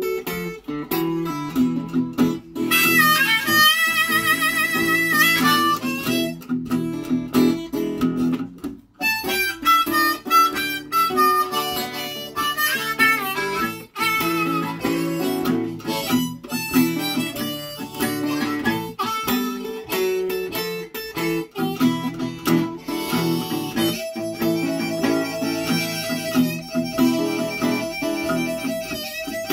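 Blues harmonica solo over acoustic guitar accompaniment, with a few wavering, warbled notes about three to six seconds in.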